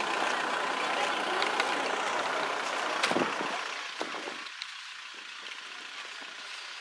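A vehicle engine running steadily, which drops away to a quieter background about four seconds in.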